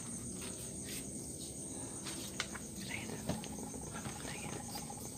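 Crickets chirring steadily in a high, finely pulsing band, with a few light knocks along the way.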